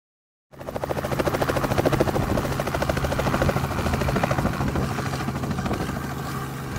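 Robinson light helicopter flying low, its two-blade main rotor beating rapidly over a steady engine drone. The sound starts abruptly about half a second in and grows slightly quieter toward the end.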